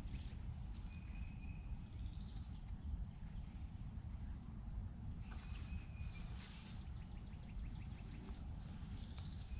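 Outdoor ambience by a river: a steady low rumble with a few faint, short bird calls, one about a second in and more around five seconds in.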